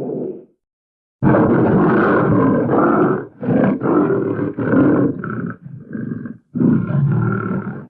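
Florida black bear growling in a series of rough calls: one fading out just after the start, then a long call of about two seconds, several shorter ones, and another near the end, with dead silence between them.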